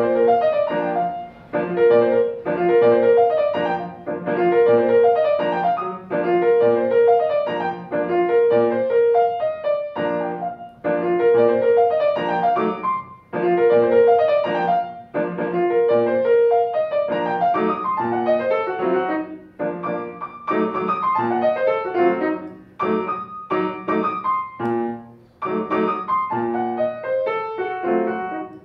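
Kawai grand piano played solo: phrases of quick notes circling a repeated middle note, with brief breaks between them, growing busier with faster runs in the second half.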